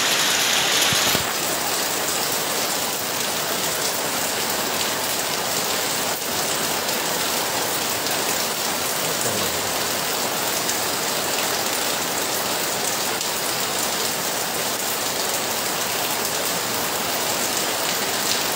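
Heavy rain falling steadily, a dense even hiss of downpour on surfaces, dropping slightly in level about a second in.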